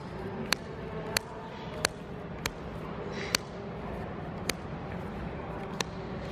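Trading cards being flipped through one at a time, each card moved across the stack with a sharp snap: about eight snaps, more spaced out toward the end, and a brief sliding rustle of cards a little past halfway. A steady low hum underneath.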